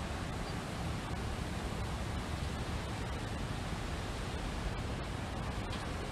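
Steady wind, an even hiss with a low rumble underneath.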